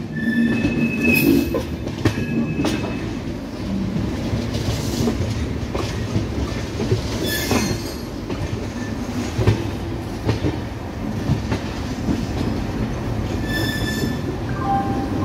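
Indian Railways passenger train's wheels rumbling and clattering over the rails and points, heard from aboard the train. Short high wheel squeals come in the first few seconds, about halfway through and again near the end.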